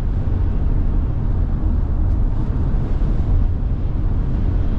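Steady low rumble of road and wind noise inside a Tesla Model Y's cabin at highway speed, with no engine sound, in strong gusting wind.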